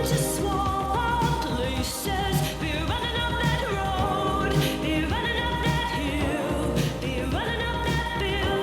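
A pop song playing, with singing over full instrumental backing.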